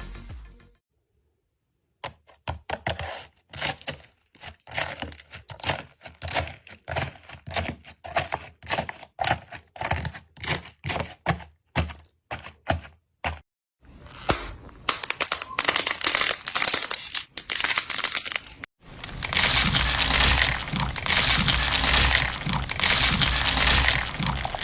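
Slime being handled and pressed, giving a run of sharp crackling pops, irregular and spaced out at first, then denser and nearly continuous in the last several seconds.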